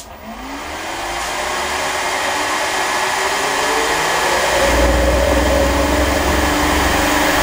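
A 3 hp three-phase electric motor, wired in delta and fed by a variable frequency drive, starting with a click and speeding up as the drive ramps its output toward 50 Hz. It gives a rising whine that grows steadily louder, with a deeper hum coming in about halfway through.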